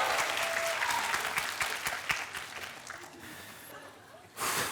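Studio audience applauding, the clapping dying away over a few seconds, then a short burst of noise near the end.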